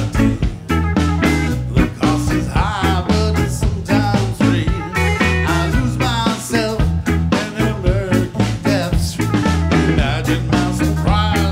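Live band playing an upbeat ska-style groove: drum kit, electric bass, electric guitar and keyboards, with saxophone, the drums hitting on a steady beat under bending melodic lines.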